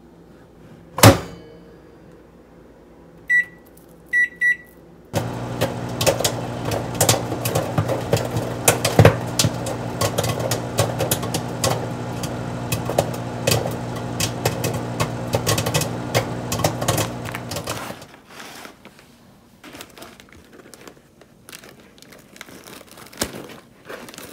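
A microwave door shuts with a loud knock, three keypad beeps follow, and then the LG microwave oven runs with a steady hum while a bag of microwave popcorn pops inside with many rapid sharp pops. The hum and popping stop suddenly near the end.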